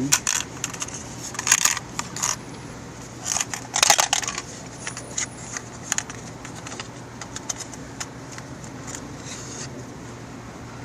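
Small clicks, clinks and scrapes of taillight bulbs and their plastic sockets being handled and pulled out, busiest in the first few seconds and sparse after that. A steady low hum runs underneath.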